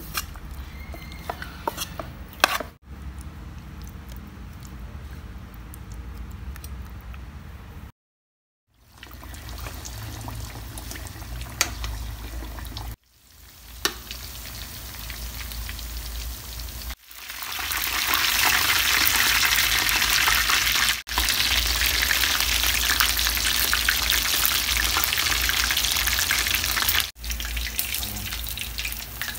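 Chicken wings deep-frying in hot oil in a metal pan, sizzling and crackling, loudest and densest in the last third. At the start there are a few clicks from flour-coated wings being mixed by hand in a metal bowl, and the frying sound cuts off sharply several times.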